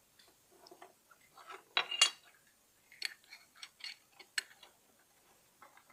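Small plastic toy pieces handled and put into a little tin box: a string of light clicks and taps, the loudest about two seconds in.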